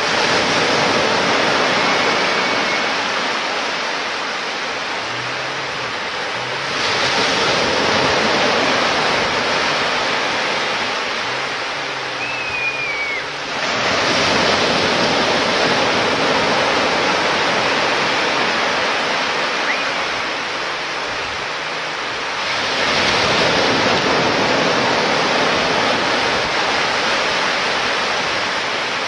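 Waves breaking on a beach, each new break coming in suddenly about every seven to eight seconds and easing into a steady wash of surf.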